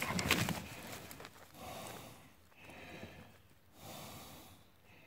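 A person breathing close to the microphone, soft breaths swelling and fading about once a second. A few clicks and rustles of handling come near the start.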